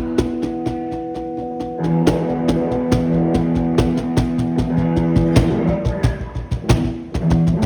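Music: drums keeping a steady, fast beat under sustained pitched instrument tones, rock-like, with guitar.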